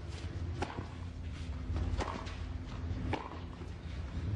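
Tennis rally on a hard court: sharp racket-on-ball hits and bounces about every second and a quarter, over low steady background noise.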